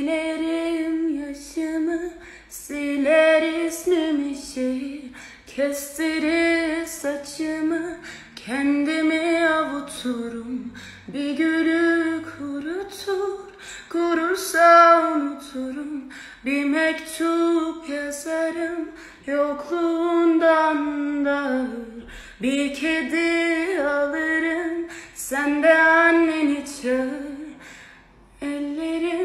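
A woman singing solo and unaccompanied, in long notes that bend in pitch, with short pauses for breath between phrases.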